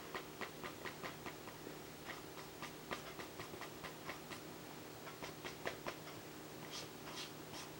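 Pastel pencil making short drawing strokes on vellum-surface mixed media paper: a faint, irregular run of small ticks and scratches, about four a second, with a few sharper scratches near the end, over a low steady hum.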